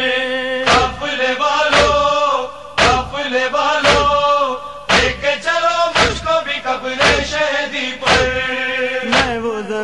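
A nauha, a Muharram lament, chanted in a long held melody with no clear words, over a heavy thud about once a second: the rhythmic chest-beating (matam) that keeps time in a nauha.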